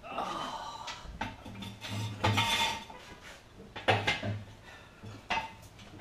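Metal clanking and rattling from a small drum-type concrete mixer and its metal stands as the mixer is lifted off the stands: a clatter at the start, then several separate knocks that ring briefly.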